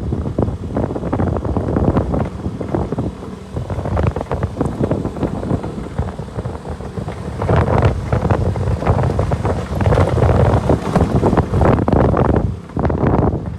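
Wind buffeting the microphone in loud, uneven gusts while riding a motorcycle, with the bike's running noise underneath.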